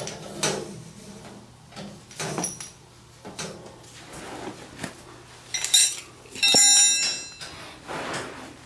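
Handling noises as a garden hose and its fittings are worked into place on a pressure washer frame: scattered knocks and clinks, with a short, loud squealing scrape about six and a half seconds in.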